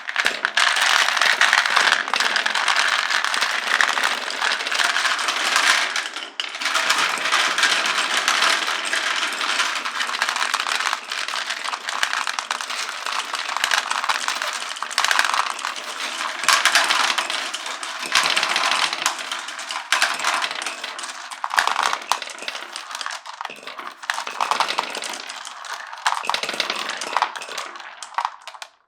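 Many glass marbles rolling and clattering down a wooden marble run, a dense rattle of countless small clicks and knocks. It starts abruptly and thins out a little near the end.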